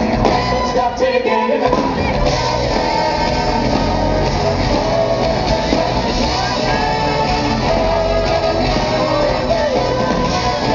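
Live soul band with singers and a horn section playing loud dance music; the low end drops out briefly about a second in, then the full band carries on.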